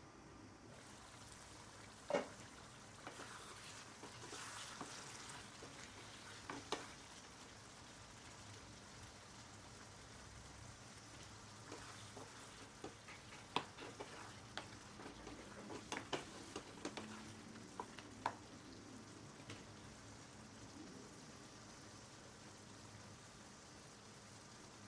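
Chicken gravy sizzling faintly in a pan, stirred with a wooden spatula that scrapes and knocks against the pan. A sharp knock comes about two seconds in, and a run of clicks and taps between about twelve and eighteen seconds in.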